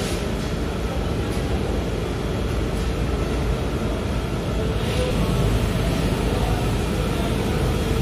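Steady machinery noise in a laundry room: a continuous low rumble with a faint steady hum, and a brief hiss about five seconds in.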